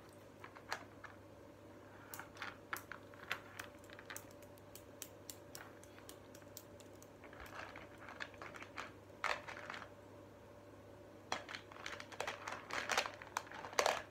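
Plastic lacing beads clicking against each other and the tabletop as they are threaded and handled on a string: scattered single clicks, then denser clattering about two-thirds of the way through and again near the end.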